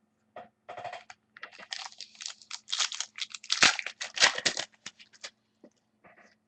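Crinkling and tearing of a trading-card pack's foil wrapper as it is ripped open, a quick run of crackles loudest around the middle, over a faint steady low hum.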